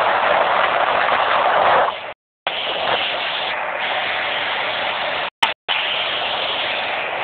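Steady rushing of wind and water on a speed boat running fast over open water, with no distinct engine tone. The sound cuts out abruptly twice, about two and five seconds in.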